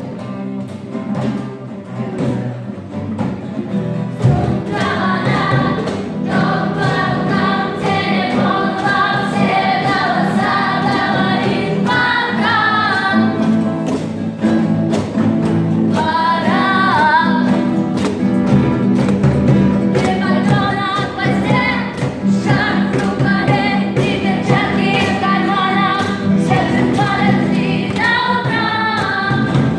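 A song with a steady beat; the singing comes in about four seconds in.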